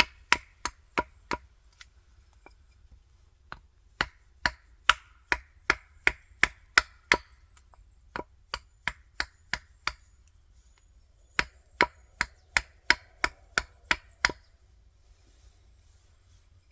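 Axe chopping into a wild cherry billet to shape a coffee scoop, in four runs of quick strikes, about three a second, with short pauses between. The chopping stops a couple of seconds before the end.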